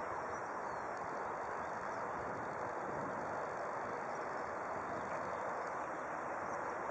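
Steady rushing background noise with no distinct events, crossed by a few faint, short high chirps.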